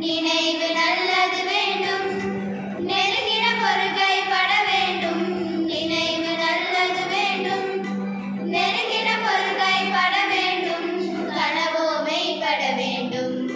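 A small group of schoolgirls singing a song together, unaccompanied, in phrases of about three seconds with short breaths between them.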